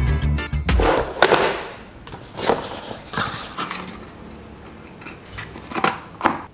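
Background music that cuts off under a second in, then a cardboard box and the hard 3D-printed plastic parts inside it being handled: rustling and scraping, with several sharp knocks as parts are picked out and set down.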